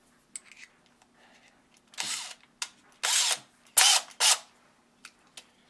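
Keyless chuck of a Porter-Cable 20V cordless drill ratcheting as a bit is fitted and tightened, in four short rasping bursts from about two seconds in, with a few light clicks before them.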